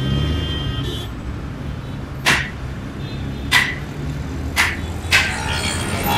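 Steady low background rumble like distant traffic, with four short sharp clicks in the second half, spaced about a second apart or less.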